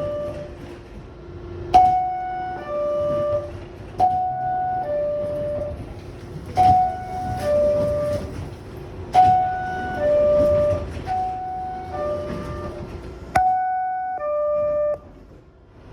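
New York City Subway car door chime sounding six times, each a two-note high-then-low ding-dong about every two and a half seconds, the warning that the doors are closing. Several chimes begin with a sharp click, and a steady hum runs underneath through the first half.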